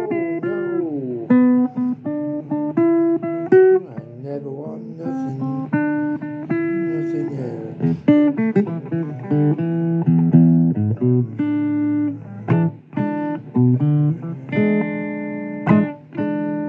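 Blues recording with guitar: an instrumental passage of held single melody notes over a lower accompaniment, one note bending down in pitch about a second in.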